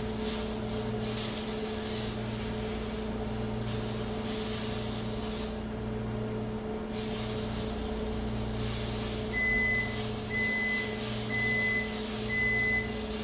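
Microwave oven running with a steady hum, then beeping repeatedly, about one beep a second, starting about nine seconds in: the cooking cycle has finished. A steady high hiss sits under it.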